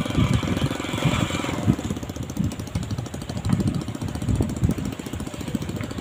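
Small engine of an outrigger boat idling with a fast, even chugging.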